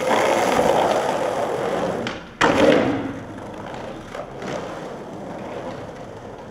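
Skateboard wheels rolling loudly over brick block paving, with one sharp clack about two and a half seconds in. The rolling is quieter after that, with a few light clicks.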